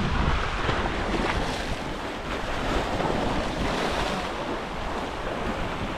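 Surf washing against shoreline rocks, with wind buffeting the microphone: a steady rushing noise.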